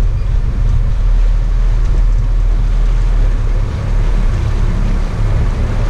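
Sport-fishing boat's engines rumbling steadily, with a noisy wash of water and wind over it.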